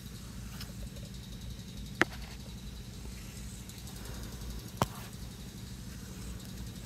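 A steady low hum with two sharp clicks, one about two seconds in and one nearly three seconds later.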